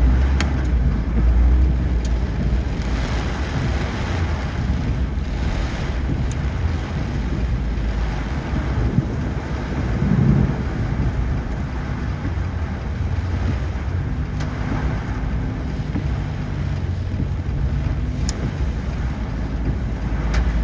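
Car on the move on a rain-soaked road: a steady low rumble of engine and road, with a hiss of tyres on the wet surface and a few faint clicks.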